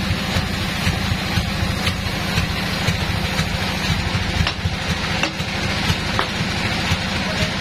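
Bandsaw mill's engine idling steadily with a low, fast chugging while the teak log sits on the carriage uncut, with a few short sharp knocks of the log being set and clamped.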